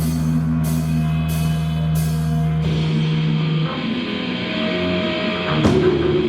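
A deathgrind band playing live: loud distorted guitars hold a low chord under four evenly spaced accented drum-kit hits, then the riff changes a little under halfway through, with another sharp hit near the end.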